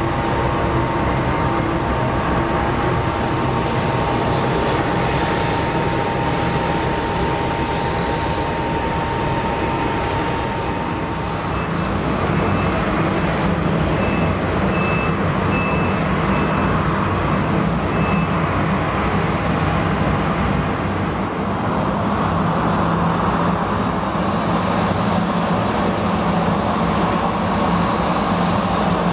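Boeing 737-700's CFM56 jet engines running at idle as the airliner is pushed back and taxis off. A steady whine is heard through the first half, and a deeper hum takes over from about halfway.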